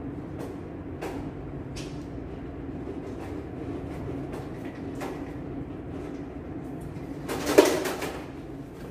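Light handling noises from a latex balloon and ribbon: scattered small clicks and rustles over a steady low hum, with one louder rustle of about a second near the end.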